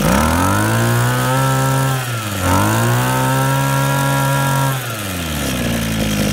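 Used Japanese two-stroke brush cutter engine on a test run, revved up to full speed twice. Each rev is held for about two seconds, with a brief dip between them, and the engine falls back to a steady idle near the end.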